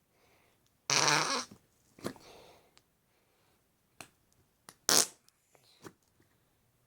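Glow-in-the-dark slime being pressed back into its plastic tub, trapping air and making fart noises: a longer one about a second in and a short one near five seconds, with small clicks of the container in between.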